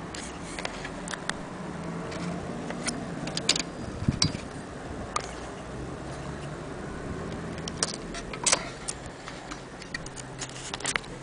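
Scattered sharp mechanical clicks and light knocks from a small antique mechanism being handled, coming singly or in short clusters a second or more apart.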